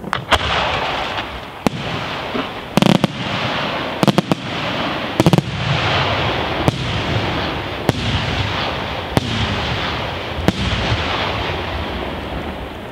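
Aerial fireworks shells bursting overhead: sharp bangs, with quick clusters of reports about three and four seconds in, then single bangs roughly every second and a quarter. A steady crackling hiss from the bursts fills the gaps and fades near the end.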